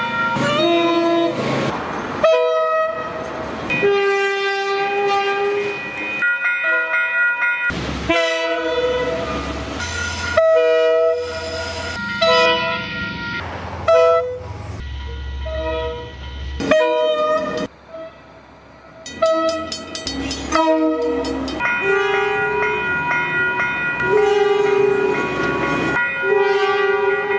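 A quick succession of different locomotive horns, each sounding a chord of several steady tones, cut together so that the horn changes abruptly every second or two. Partway through there is a brief quieter gap and a fast run of clicks, and near the end the horns are held longer.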